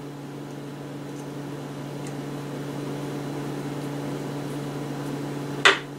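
Steady low hum with a faint hiss underneath, and one sharp click near the end.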